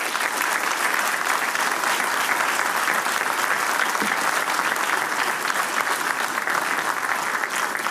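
Large audience applauding steadily, a dense even clapping that continues without a break.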